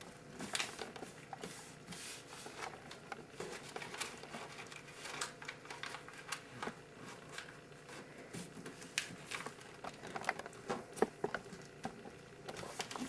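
A sheet of paper being folded and creased by hand into airplane wings: scattered soft crinkles, rustles and small taps.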